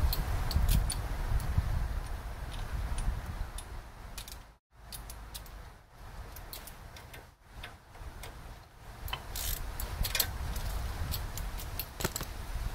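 Ratchet wrench clicking in short runs on the brake caliper bolts, with other small metal tool clicks, over wind rumble on the microphone.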